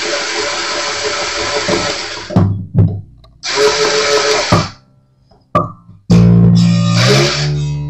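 Small cordless electric screwdriver whirring in bursts as it turns an acoustic guitar's tuner peg to wind on a string, with short knocks in the pauses. In the last second and a half the string rings out low while the driver runs, its pitch rising as it is wound tight.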